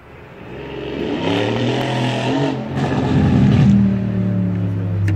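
Mercedes-AMG C63 S Coupé's 4.0-litre twin-turbo V8 running. It grows louder over the first second, rises and falls in pitch, peaks about three and a half seconds in, then settles into a steady low note.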